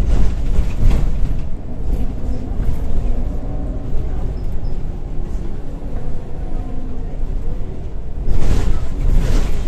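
Scania L94UB Wright Solar single-deck bus heard from inside while under way: its 9-litre five-cylinder diesel and ZF automatic gearbox running as a steady low drone. Louder noisy stretches come about a second in and again near the end.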